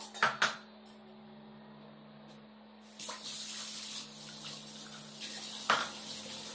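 Steel vessels clink twice in a kitchen sink. About three seconds in, the tap is turned on and water runs steadily into the sink, with another clatter of a vessel shortly before the end.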